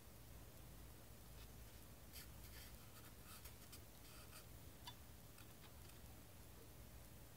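Near silence over a low steady hum, with a scatter of faint light clicks and taps in the middle few seconds as fingers handle the small parts of a 1/43-scale diecast racecar transporter model.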